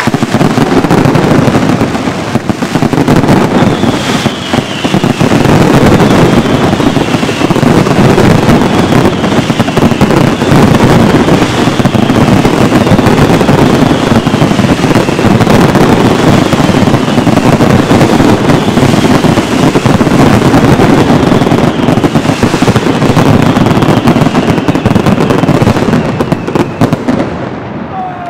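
Mascletà: a dense, continuous barrage of salute shells and firecrackers, countless bangs merging into one very loud rattle, with falling whistles recurring about every two seconds. The barrage thins out near the end.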